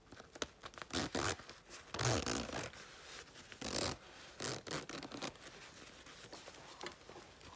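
Zipper on a quilted nylon dog vest being zipped closed in several short rasping pulls, with the padded fabric rustling between them.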